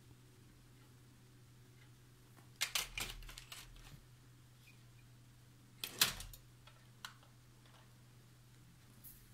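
Wire basket on the wall rattling and clinking as a cat paws at it: a quick run of clicks about two and a half seconds in, a louder cluster around six seconds, and one single click just after. A steady low hum runs underneath.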